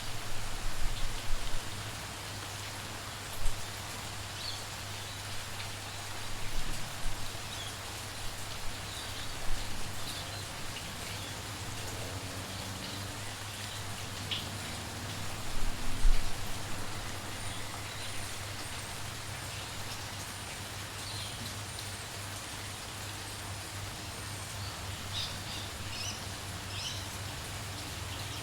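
Steady light rain hissing, with birds chirping now and then, more often towards the end. A few loud low thumps stand out in the first half.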